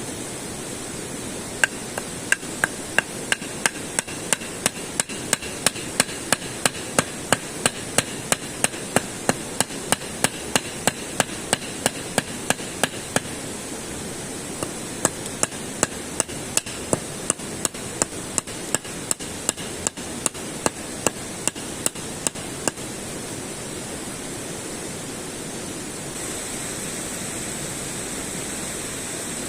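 Steady hammering: sharp, even strikes at about three a second, in a long run, a short pause, then a second run, over a steady rushing background.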